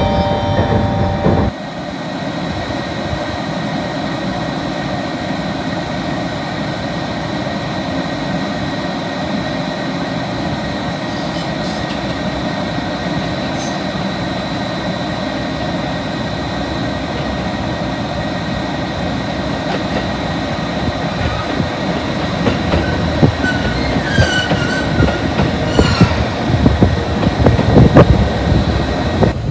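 The last notes of an onboard melody chime, cut off about a second and a half in, then the steady running noise of a train with a faint steady whine. From about two-thirds of the way through it grows louder and more clattering, with short high squeals of steel wheels on rail.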